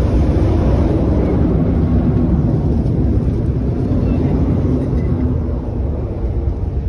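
Engine and propeller noise of a small high-wing propeller plane heard from inside the cabin, a loud steady rumble as it rolls along the runway, easing off a little near the end.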